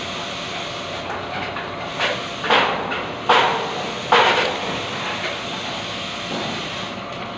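Angle grinder running against metal, with three short loud rasping bursts in the middle, each dying away quickly.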